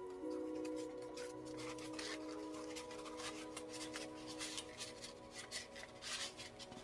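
Cardstock and paper rubbing and scraping in irregular strokes as handmade paper tags are handled. Soft ambient background music with held tones plays underneath.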